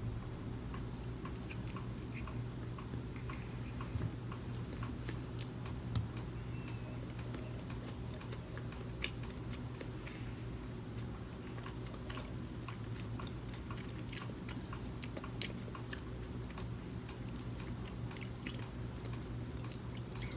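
A person chewing sushi close to the microphone: soft, scattered mouth clicks and smacks over a steady low hum.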